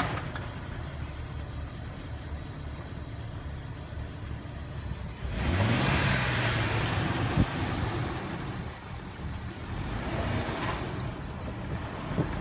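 Jeep Wrangler TJ Rubicon's 4.0-litre straight-six engine running at low revs as it crawls over rocks. About five seconds in it revs up and holds higher as it climbs, then eases back. A single sharp knock comes a couple of seconds after the rev starts.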